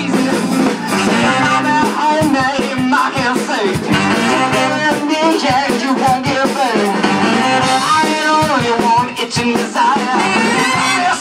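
Live band playing an upbeat, ska-like number: a horn section of trumpets and saxophones over electric guitar and drums.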